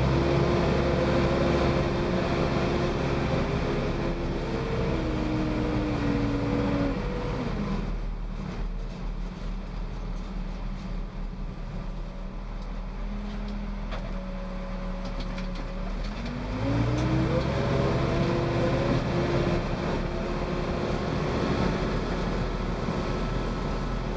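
Case 580L backhoe's turbo diesel engine running while the machine is driven on the road. About seven seconds in the engine speed drops and it runs lower and quieter, then about sixteen seconds in it climbs back up as the machine speeds up again.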